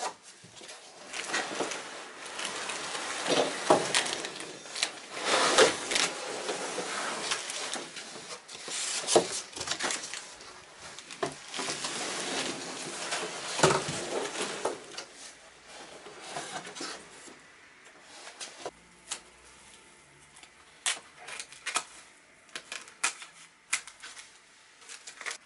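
Cardboard box flaps and bubble-wrap packaging rustling and scraping as a boxed mountain bike is handled and drawn out, with loud bursts in the first half. Later come scattered sharp clicks and taps.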